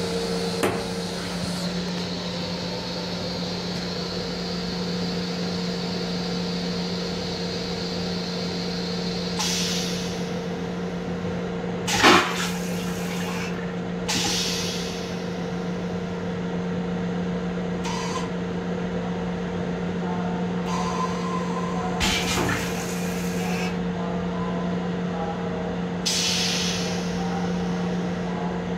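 Steady electrical hum and running drone of an M7 electric railcar, heard inside its small restroom. Several short hisses of air break through it every few seconds, and the loudest, about twelve seconds in, comes with a sharp knock.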